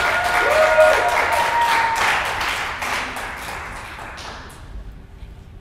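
A small group applauding, the separate claps easy to pick out, with a few whoops of cheering in the first two seconds. The clapping thins and dies away after about four and a half seconds.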